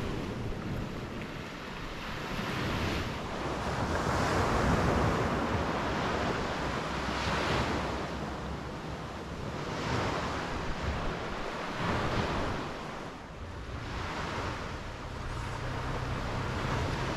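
Ocean surf breaking on the beach, the wash swelling and ebbing every two to three seconds, with wind buffeting the microphone.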